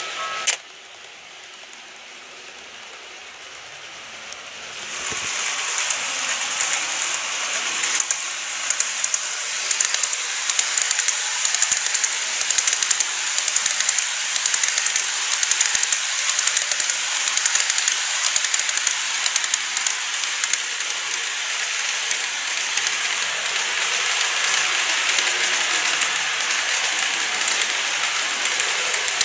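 A model level-crossing bell cuts off just at the start. About five seconds in, model trains start running around the track: a steady high whirr of motor and wheels with many small clicks as the wheels pass over the rail joints.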